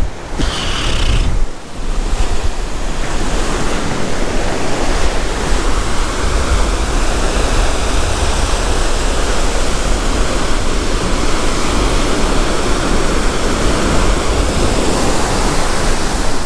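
Ocean surf breaking and washing up a sandy beach, a steady loud rush, with wind buffeting the microphone in a low rumble.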